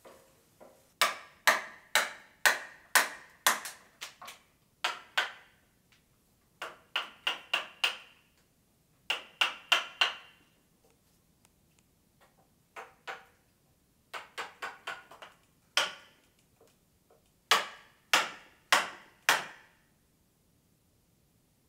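Wooden mallet striking a carving chisel into a block of wood, a series of sharp knocks in irregular groups, often about two a second, with short pauses between groups.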